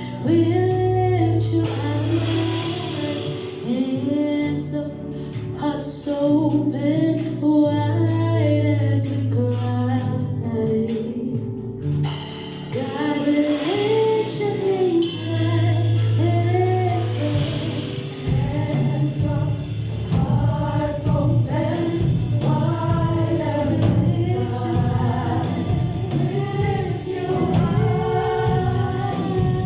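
Gospel choir singing a worship song with mixed voices, over held low bass notes that drop away about halfway through.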